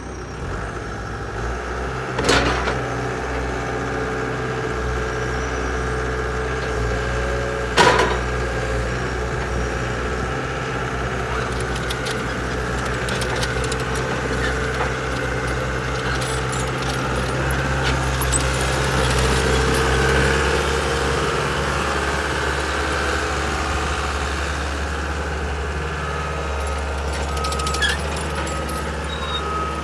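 A Caterpillar 287B skid steer's four-cylinder diesel engine running steadily, with two sharp knocks about two and eight seconds in. Its engine note shifts about twenty seconds in.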